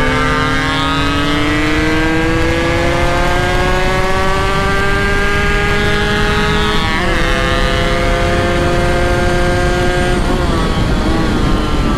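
Two-stroke motorcycle engine pulling under way, its note climbing slowly for about seven seconds, then dropping suddenly at a gear change and holding steady, with another shift near the end. A rushing noise of wind and road runs underneath.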